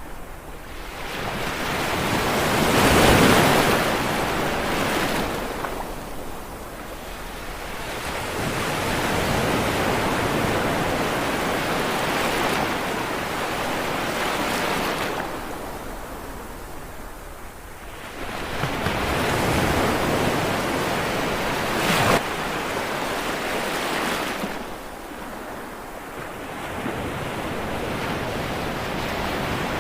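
Sea waves surging in and washing back on a shore, the surf swelling and fading every several seconds, loudest near the start. A short sharp splash comes about three-quarters of the way through.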